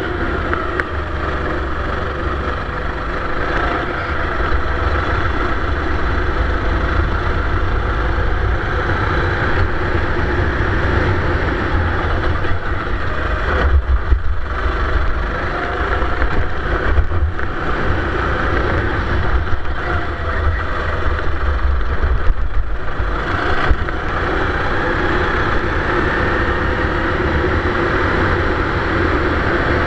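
Four-stroke Sodi racing kart engine running hard under racing throttle, pitch rising and falling through the corners, heard from a camera on the kart, with a heavy low rumble and a few brief dips.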